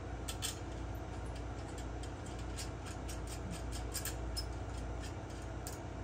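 Light, irregular clicks and taps of a chrome vacuum handle tube and its small fittings being handled and fitted together, over a steady low hum.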